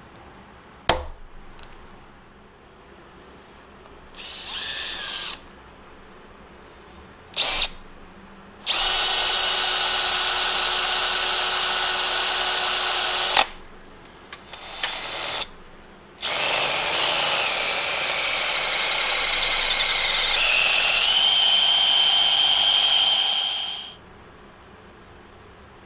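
A single sharp hammer tap on a transfer punch about a second in. Then a cordless drill drilling a hole for a tap into the milling machine's head: a couple of short bursts, then two long steady runs with a whining motor. The whine steps to a lower pitch partway through the last run.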